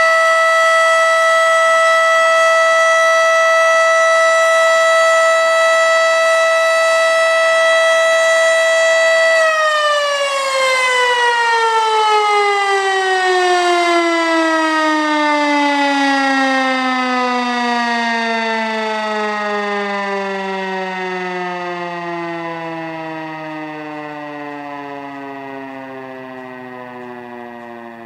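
American Signal Corporation OM-120 omnidirectional warning siren sounding its steady alert tone, unusually high-pitched, which the owner puts down to an old bird's nest blocking the intake. After about nine seconds it shuts off and winds down, its pitch falling steadily and fading, and it is still coasting down at the end.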